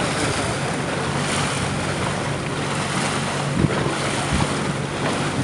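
Wind rushing over the microphone on a small boat under way, with the steady low hum of its engine underneath. Two short low thumps come a little past the middle.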